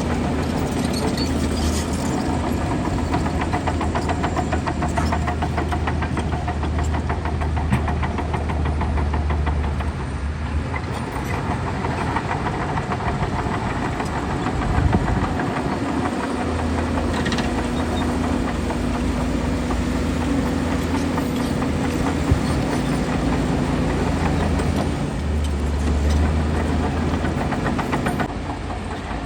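Crawler bulldozer's diesel engine working under load with the clatter of its steel tracks; the engine hum eases off briefly a few times and picks up again.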